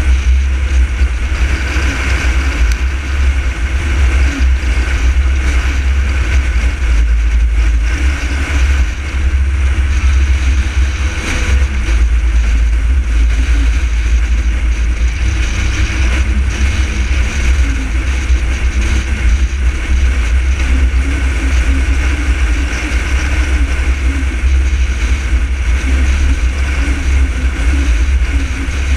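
A car driving at highway speed: steady road and engine noise with a heavy low rumble.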